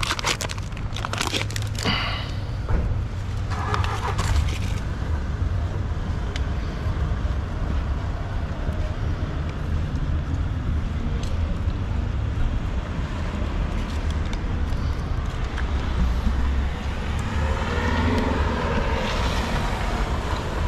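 Plastic food packaging crinkling and tearing for the first few seconds, then a steady low rumble of street traffic.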